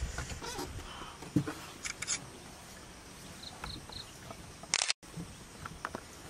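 A handheld camera's focus-confirmation beep sounds three times in quick succession, short and high-pitched, about three and a half seconds in. A brief sharp burst follows just before five seconds, over faint scattered clicks and rustling.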